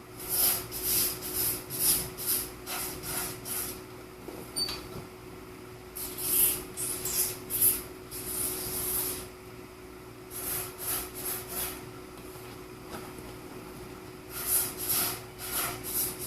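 Fluid Film AS-360 aerosol lubricant sprayed in short hissing squirts, in four groups of quick bursts with pauses between, to lubricate a creaking chair's joints and stop the squeak. A faint steady hum runs underneath.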